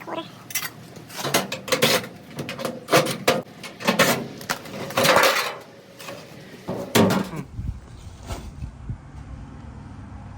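Irregular metallic clanks, clinks and rattles as a lint-clogged dryer is worked on and cleaned out. About seven and a half seconds in they stop and give way to a steady low hum.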